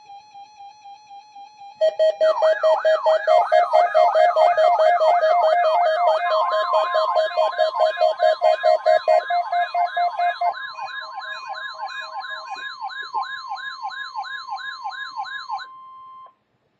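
Several electronic weather-alert alarms sounding at once. A rapid beeping gives way, just under two seconds in, to loud pulsed tones and warbling siren-like sweeps about twice a second. About six seconds in, a steady 1050 Hz NOAA Weather Radio warning alarm tone joins them, and everything cuts off just before the end.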